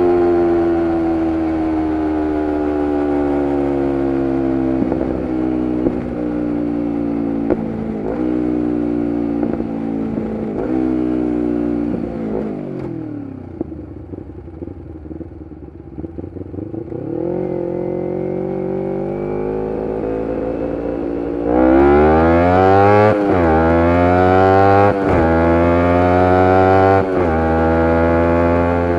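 2011 Kawasaki Ninja 250R SE's parallel-twin engine through a full Graves race exhaust, slowing with engine braking and downshifts to low revs, then pulling away and accelerating hard, revving up through several upshifts, louder in the last third.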